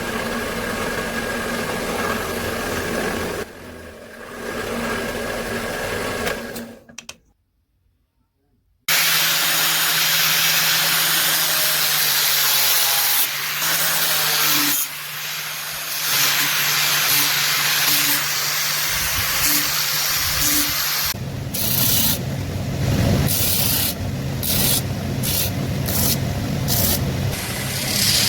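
Workshop power tools working metal or wood, in several short clips separated by a brief silence about seven seconds in. A steady motor hum runs under a noisy grinding or rubbing sound, which is broken by short regular gaps in the last few seconds.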